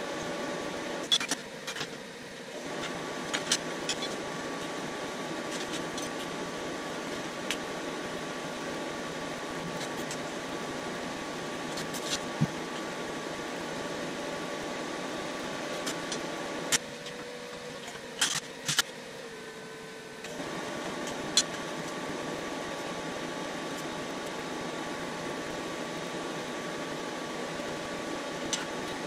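Electric arc welding on steel: the arc's steady crackling hiss, broken by a few sharp clicks, stops briefly twice, about a second in and again around seventeen seconds in.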